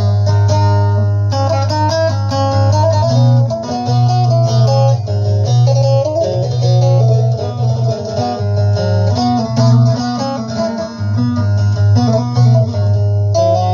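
Bağlama (saz) playing a fast plucked instrumental melody between sung verses, over a low, sustained bass line.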